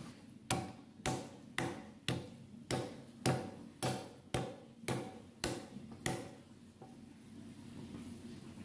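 Knife chopping on a cutting board: about eleven sharp, even strokes, roughly two a second, that stop about six seconds in.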